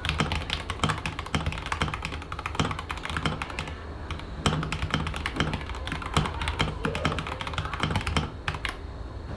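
Typing on a mechanical keyboard: a fast run of key clacks that thins out after about four seconds and stops shortly before the end, over a steady low hum.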